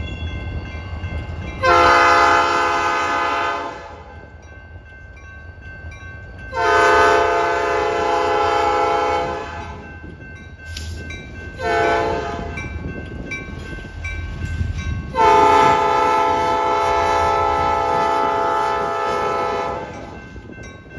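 Norfolk Southern diesel locomotive's multi-chime air horn sounding long, long, short, long: the grade-crossing signal. Underneath it runs the low rumble of the locomotive's diesel engine.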